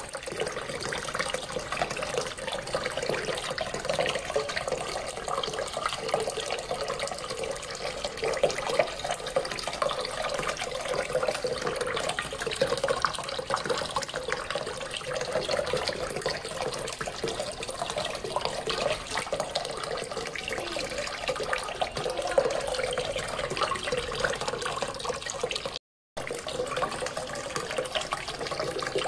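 Water from a small submersible fountain pump's jet falling back into a basin of water: a steady splashing and trickling, with a brief break near the end.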